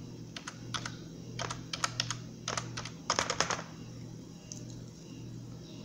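Typing on a computer keyboard: a quick run of key clicks in small clusters as a phone number is entered, stopping about three and a half seconds in. A low steady hum runs underneath.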